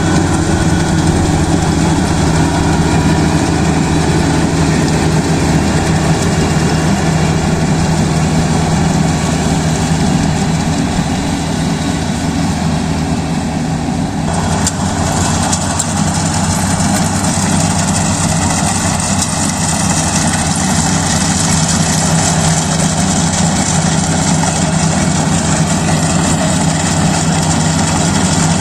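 Kubota DC-35 rice combine harvester running steadily, a continuous engine drone with machinery hiss over it. About halfway through, the higher hiss grows brighter and stays so.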